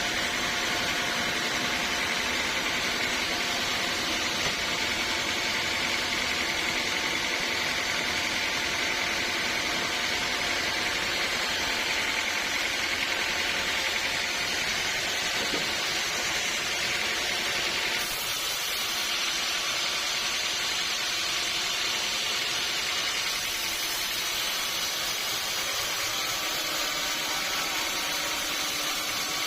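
Sawmill machinery running steadily, a loud mechanical hum with a whine in it as it works on teak logs. The sound changes character about 18 seconds in.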